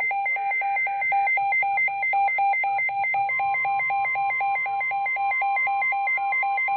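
Emergency Alert System attention signal: a loud electronic tone switching rapidly between two pitches, about four times a second, with a short buzzy data burst layered over the first second. A steady single tone joins about halfway through, and the alert cuts off abruptly near the end.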